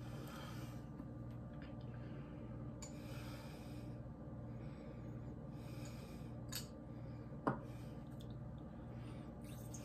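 Quiet breaths through the nose every few seconds over a low steady hum, with small clicks and one sharp click a little past halfway.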